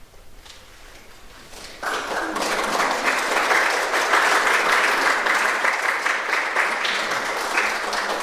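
Audience applause: a few scattered claps at first, then the whole room breaks into steady clapping about two seconds in.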